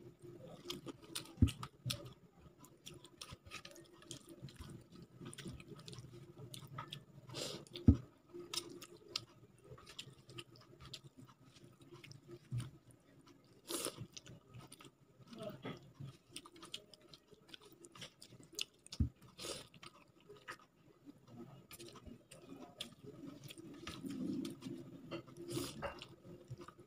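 Close-up chewing and mouth sounds of someone eating rice with rasam by hand, with many small clicks and wet smacks. A few sharp knocks stand out, the loudest about a second and a half and eight seconds in.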